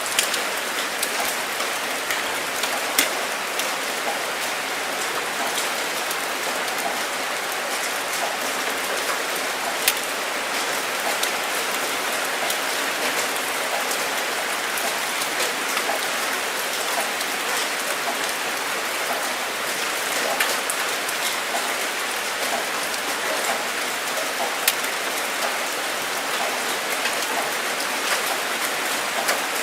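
Steady rain falling, an even hiss with many individual drops pattering and clicking close by, a few louder drop hits standing out now and then.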